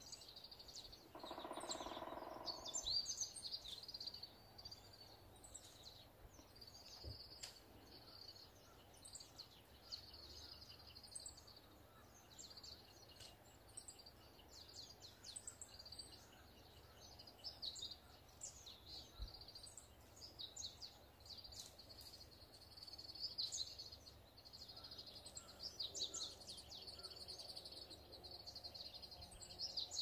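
Faint birdsong: a woodpecker calling among many short, high chirps and trills from other birds. A brief lower, pitched sound rises above them about a second in.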